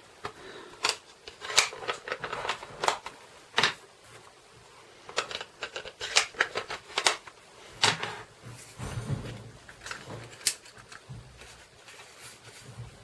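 Paper craft pieces and supplies handled on a tabletop: irregular clicks, taps and rustles of cardstock, with a low rumble of handling in the latter half.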